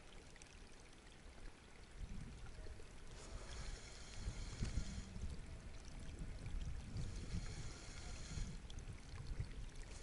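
Gusty wind rumbling on the microphone, with a spinning reel being cranked in two stretches of a second or two as the lure is retrieved.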